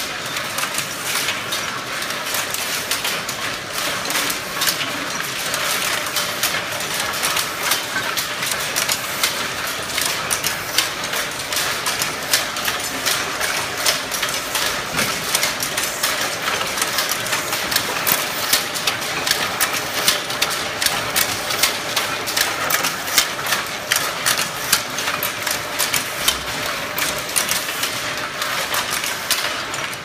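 Crimped wire mesh weaving machine running: a steady, dense clatter of rapid mechanical clicks from the loom as it weaves wire mesh.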